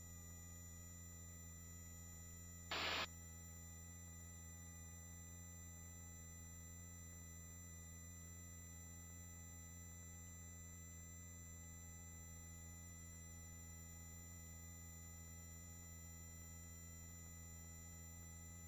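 Near silence on the helicopter's intercom audio feed: a faint, steady electrical hum with a few thin constant tones, broken about three seconds in by one brief burst of noise.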